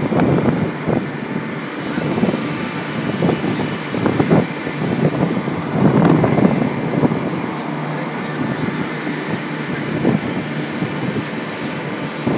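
Steady running noise of a tuna seiner's engine and deck machinery, with a few scattered knocks and clatter.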